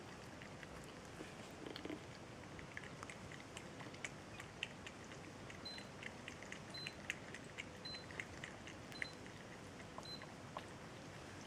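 Two cats lapping milk from a small bowl: faint, quick, irregular wet clicks of their tongues. In the middle, a faint high beep repeats five times, about once a second.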